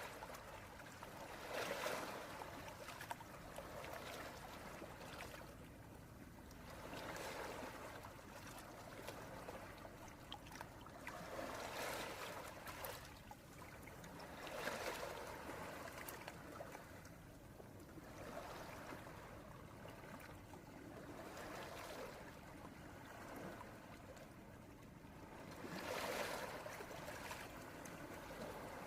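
Gentle waves washing onto a beach: a soft hiss of surf that swells and falls back every few seconds.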